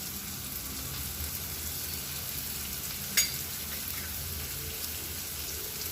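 Oil sizzling steadily around drumstick, brinjal and potato pieces frying in a pan, with one sharp click about three seconds in.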